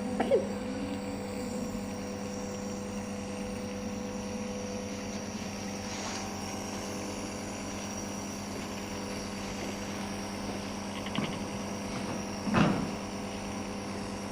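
Small electric motor running with a steady hum. A few brief, louder sounds break in near the start and about eleven and twelve and a half seconds in, the last the loudest.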